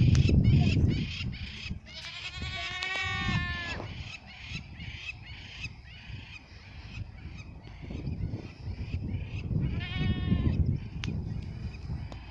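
Boer goats bleating: two drawn-out bleats, one about two seconds in and another near ten seconds, over a low rumble that is loudest at the start.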